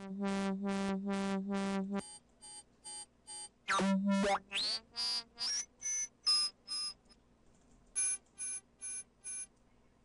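Electronic dubstep synth patch played in short repeated notes: a low pulsing bass tone first, then short staccato notes with a quick upward pitch sweep about four seconds in, and four short high notes near the end.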